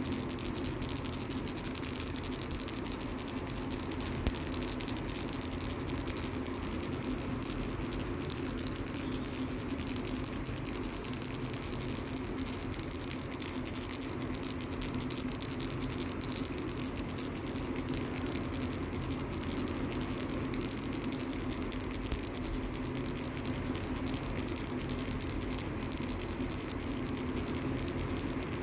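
Baby's ball rattle toy being shaken continuously: a steady, unbroken rattling of dense fine clicks with no pauses.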